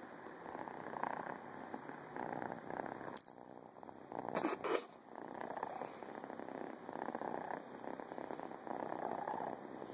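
Tortoiseshell cat purring close to the microphone, the purr swelling and fading in a steady rhythm about once a second with its breathing. A couple of brief noises cut in about three to five seconds in.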